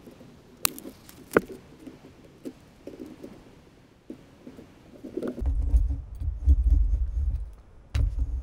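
Foil-faced sound-deadening mat being pressed onto a plywood panel. First comes light crinkling of the aluminium foil under the hands, with two sharp clicks in the first second and a half. From about five seconds in, a hand roller is run over it with a low rumble.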